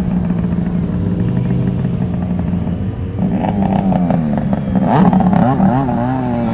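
Snowmobile engines running: a steady engine note for the first three seconds, then revving, with the pitch rising and falling repeatedly.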